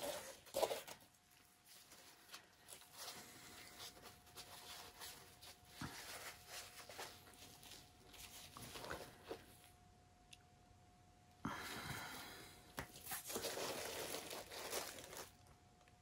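Faint, irregular rustling and crinkling handling noises, with two louder stretches of rushing noise in the last third.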